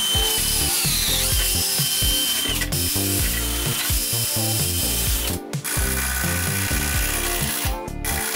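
Cordless drill driving screws into a wooden mounting block, its whine falling in pitch over the first couple of seconds, then running again after a short pause about five seconds in.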